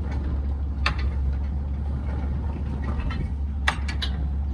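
Fishing boat's engine running with a steady low drone, broken by two sharp knocks, one about a second in and one near the end.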